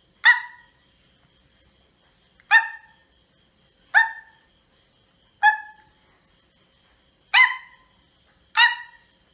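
A child's vocal imitation of a cheetah: six short, sharp calls, each cut off quickly, spaced one to two seconds apart.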